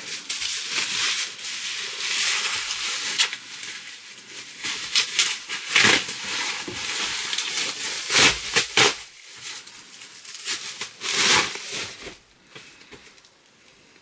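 Plastic wrapping crinkling and rustling as it is pulled off a framed print, with several sharper crackling bursts and handling knocks. It quiets down near the end.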